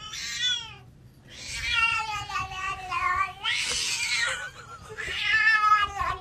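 A domestic cat yowling: a short falling meow, then two long, wavering yowls, with a rough, breathy noise between them about three and a half seconds in.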